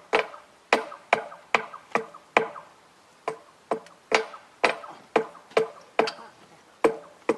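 Hand hammer striking the steel rail at a freshly thermite-welded joint, about two blows a second with a couple of short pauses. Each blow gives a short metallic ring.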